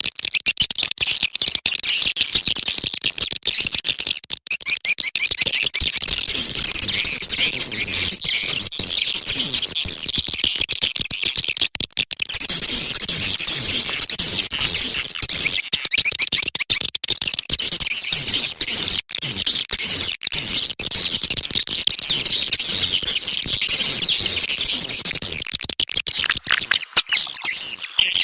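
Swiftlet calling sound: a dense, unbroken chatter of high-pitched swiftlet twitters and chirps. This is a lure recording of the kind played from swiftlet houses to draw the birds in to nest.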